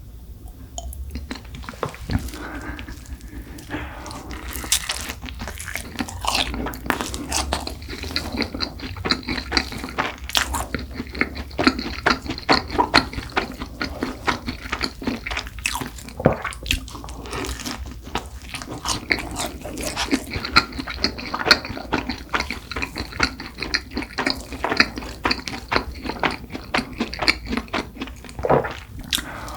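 Close-miked eating of a cronut: bites into the flaky croissant-donut pastry and chewing with wet mouth clicks, a dense run of crackles that starts sparse and grows busy after about two seconds.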